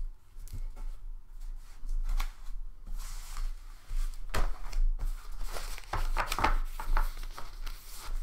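Sheets of paper rustling and being shuffled in irregular bursts as pages are sorted through.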